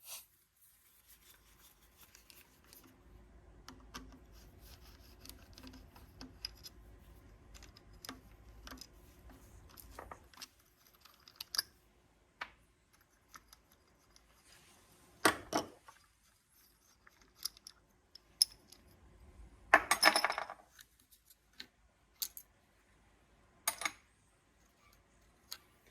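Hand tools and small metal pump parts clinking and clicking as the fuel pin is worked out of a VE injection pump: scattered light clicks, a couple of louder knocks, and a short metallic rattle in the second half.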